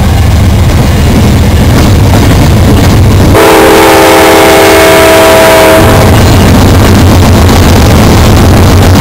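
Norfolk Southern GE Dash 9-40CW diesel locomotives passing close by with a heavy low engine rumble. The locomotive's multi-chime air horn sounds about three and a half seconds in and holds for a little over two seconds before the rumble takes over again.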